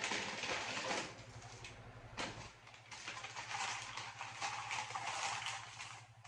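Hamburger wrapper paper crinkling and rustling as it is handled, in uneven crackly bursts with a sharp crackle about two seconds in, over a steady low hum.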